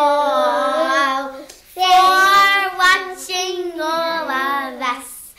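Young girls singing, two long phrases of held, wavering notes with a short break about a second and a half in.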